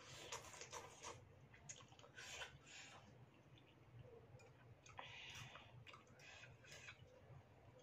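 Faint eating sounds from a bowl of noodle soup: a fork and spoon clicking against a ceramic bowl, with short slurps of noodles and chewing, and one longer slurp about five seconds in.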